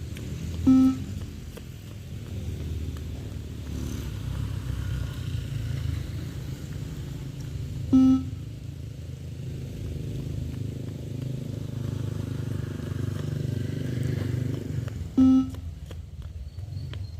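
Beep test recording sounding its shuttle beep three times, about seven seconds apart, the pace of level four, each beep marking the end of a 20 m shuttle run. Under it runs a steady low background rumble.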